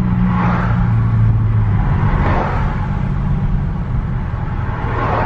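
Inside the cabin of a Chrysler 300 slowing in traffic: a steady low drone of engine and road, under a road hiss that swells and fades a few times.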